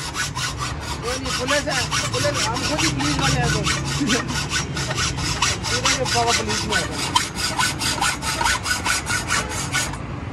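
Hacksaw cutting through a steel motorcycle exhaust pipe in a vise, in quick even strokes of about four a second. The strokes stop just before the end. The silencer is being cut off to make a straight pipe.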